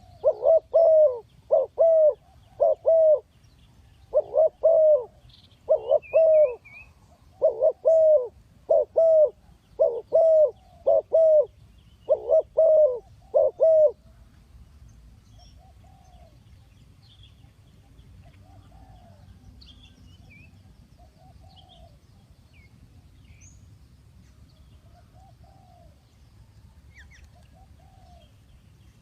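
Spotted dove cooing close and loud: a run of short coo notes in groups of two and three for about the first fourteen seconds. After that only fainter coos come at spaced intervals, with faint chirps of small birds.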